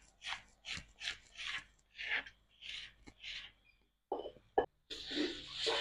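Scouring sponge scrubbing in short rasping strokes, about three a second. About four and a half seconds in there is a sharp knock, followed by a steadier rushing noise.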